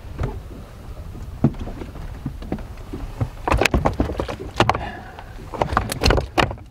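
Knocks and clatter of a large musky being laid out and shifted on a wooden bump board, in two clusters of sharp knocks in the second half, over a steady low rumble.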